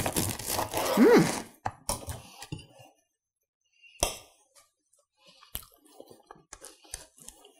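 Serrated bread knife sawing through a crusty loaf on a plastic cutting board for about a second, a dense scratchy rasp. Then a few separate knocks and clinks of the knife and board, and near the end a run of light ticks and scrapes of the knife against a slice.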